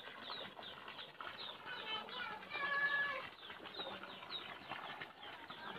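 Small birds chirping: many short, quick chirps overlapping, with one longer held call about two and a half seconds in.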